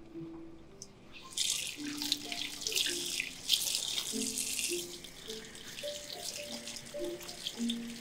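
Water running from a tap, starting about a second and a half in, over a soft, slow melody of background music.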